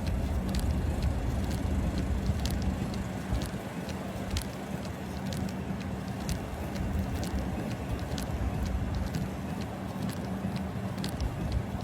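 Car driving: a steady low road and engine rumble with a constant hum, and scattered sharp ticks about once or twice a second.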